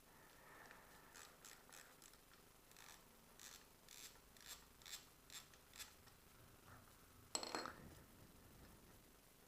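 Faint socket ratchet clicks, about two a second, as the 12 mm front brake caliper bolts are undone, followed about seven seconds in by a short, louder metallic clatter.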